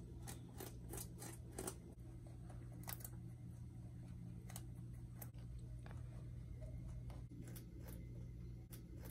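Pet rabbit chewing hay and greens, with short crisp crunches, several in quick succession in the first two seconds and then scattered single ones.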